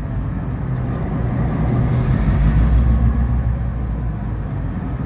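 EMD SD38-2 diesel-electric locomotive's roots-blown, non-turbocharged V16 two-stroke diesel engine running under load, a deep steady drone that grows a little louder about two seconds in and eases back.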